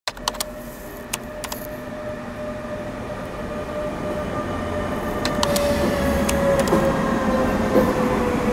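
Deutsche Bahn locomotive-hauled regional train pulling into the platform. Its locomotive passes close by with a steady whine that slowly falls in pitch as the train slows, growing louder over a rumble. A few sharp clicks sound in the first second and a half.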